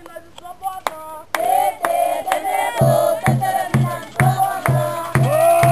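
A group sings a chant. About three seconds in, a drum joins with a steady beat of roughly two strokes a second.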